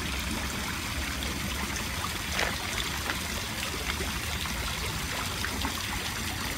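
Fountain water trickling and splashing steadily, with a few faint ticks.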